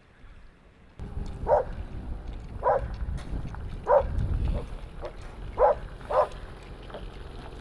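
A dog barking, short single barks about six times at uneven intervals roughly a second apart, over a steady low wind rumble.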